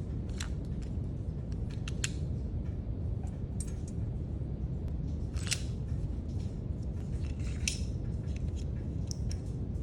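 Small hand tools and their packaging being handled: scattered sharp clicks and snips, a few louder ones, over a steady low hum.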